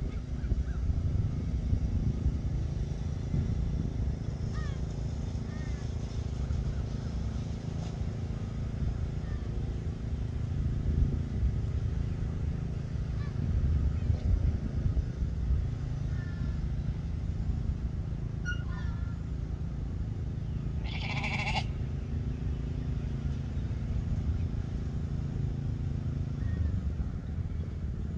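A sheep bleats once, briefly, about three-quarters of the way through, over a steady low rumble.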